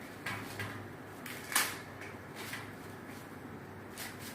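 Green corn husks being peeled off the cob by hand: a few short papery rustles and tears, the sharpest about one and a half seconds in.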